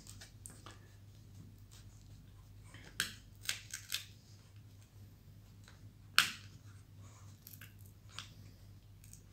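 Plastic display bezel of a Dell Latitude 5450 laptop being pried off by hand, its snap-in clips releasing in a few sharp clicks: three or four close together about three to four seconds in, and the loudest about six seconds in.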